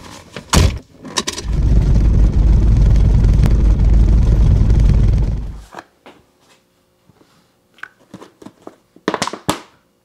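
A car door thunks shut, then a loud, heavy rumbling shudder of the car for about four seconds that cuts off abruptly. It stands for the violent shaking of a car driving with a badly bent U-joint. A few small knocks follow near the end.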